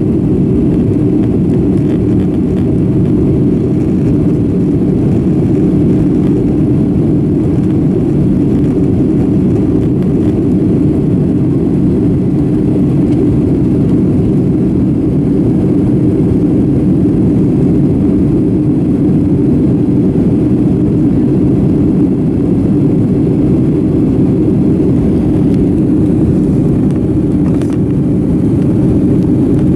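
Steady, loud drone of a Boeing 757-200's jet engines and the rushing air, heard inside the passenger cabin from a window seat near the wing during the climb after takeoff.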